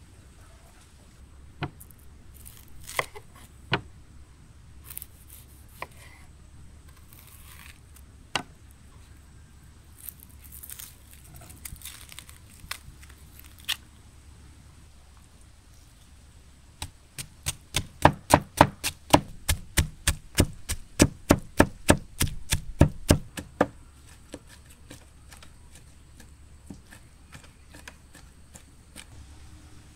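Blade chopping on a wooden cutting board. Scattered single knocks and the papery sound of onion skin being peeled come first; then, in the middle, a fast run of chopping at about four to five strokes a second lasts around six seconds, and a few light taps follow.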